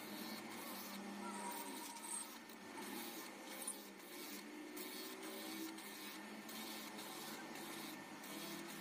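Faint steady whir of a motor-driven mounted grinding stone running inside a CV joint's outer housing, grinding and polishing its worn ball tracks.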